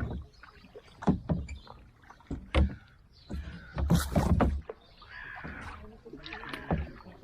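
Kayak paddles dipping and splashing in the water, a few separate strokes about every second and a half.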